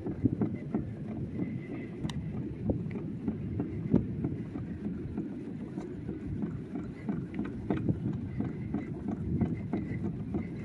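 Hobie Pro Angler 360 kayak moving through shallow water: steady low water noise along the plastic hull with many small clicks and knocks.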